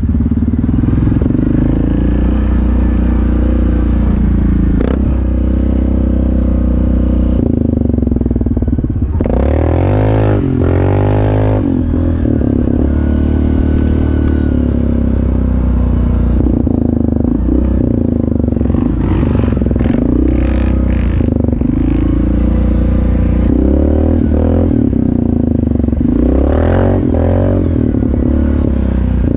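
Yamaha Grizzly 700 ATV engine running steadily while riding, revving up and back down around the middle and again near the end, with some clatter from the ride.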